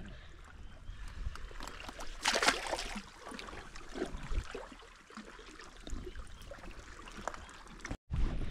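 Shallow water lapping around oyster-covered rocks, with one louder splash about two seconds in as a barramundi is released back into the water, and a few small clicks.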